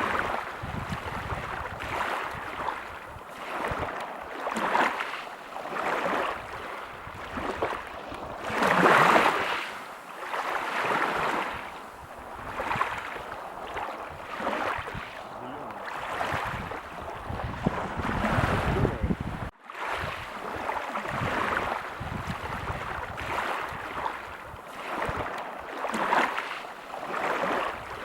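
Waves washing onto a beach, the surf swelling and easing every second or two, with one larger wave breaking about nine seconds in. The sound drops out for a moment about two-thirds of the way through.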